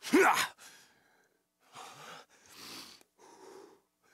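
A man's short loud vocal cry with a pitch that rises then falls, followed by four breathy huffs: a voice actor's effort sounds performed at the microphone for an animated cat character.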